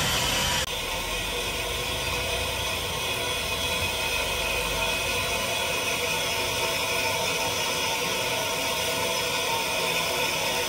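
Steady hiss of steam from a standing Ivatt Class 2 steam locomotive, with a faint even whir; the sound drops a little and changes abruptly under a second in.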